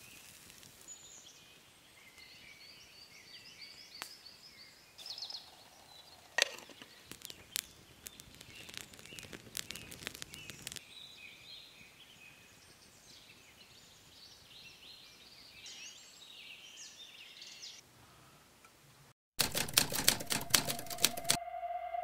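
Quiet woodland ambience with small birds chirping and a few sharp snaps and clicks. Near the end the sound cuts off abruptly and a loud burst of rapid crackling follows, with music coming in just at the end.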